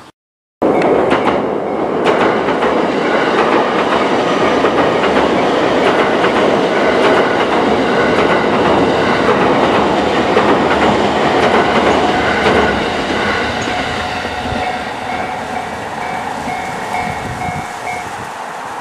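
JR East E231-series electric commuter train running past, loud rail noise that starts abruptly just after half a second in and eases off over the last several seconds.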